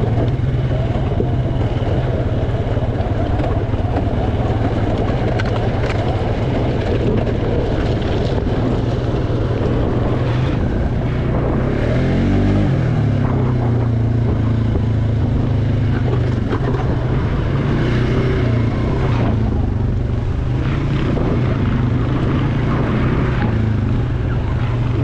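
ATV engine running under way, its note steady apart from a drop and climb in engine speed about halfway through, over a continuous rushing noise.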